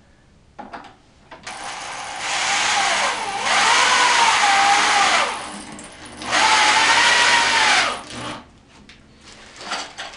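Power drill running in two runs of a few seconds each, its motor pitch dipping and recovering under load, with a few short knocks before and after.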